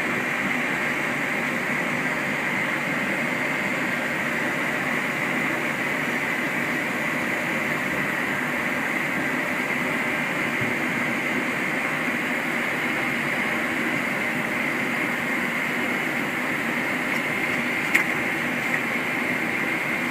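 Steady flight-deck noise of a Boeing 737-800 moving onto the runway: air-conditioning airflow and its CFM56 engines at idle, with a single click about eighteen seconds in.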